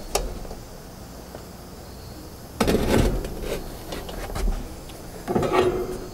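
A sharp click, then two short bursts of scraping and knocking handling noise, the second with a brief squeak.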